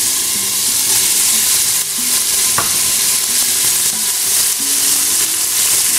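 Olive oil sizzling in a pot as green onions, red bell pepper and garlic fry, with cooked red kidney beans tipped in and stirred with a slotted spoon. There is a single sharp tap about two and a half seconds in.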